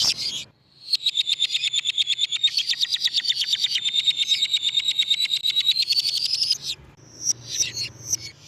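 Lovebird chattering in one long, rapid, even trill (the 'ngekek panjang') lasting about six seconds, bracketed by short sharp chirps before and after.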